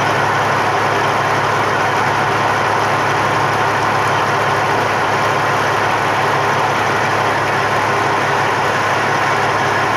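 Large diesel farm tractor engine idling steadily.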